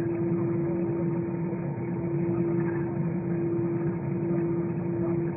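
Steady engine drone of an Airbus A320 heard inside the passenger cabin: an even rumble with a constant hum tone.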